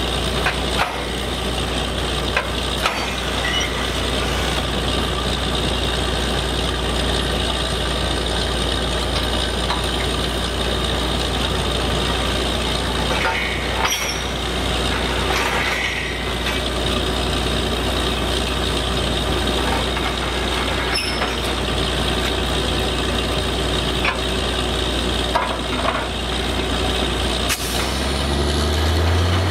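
Truck-mounted borewell drilling rig's diesel engine and air compressor running steadily, with a few short metallic knocks from the drill head. Near the end the engine revs up, rising in pitch, as the rig takes on load.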